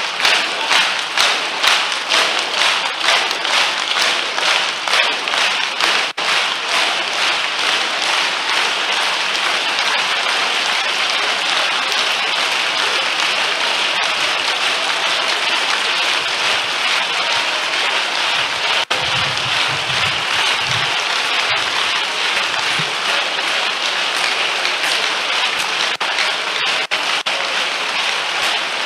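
A congregation clapping, at first in a steady rhythm of about two to three claps a second, then blending after a few seconds into continuous clapping.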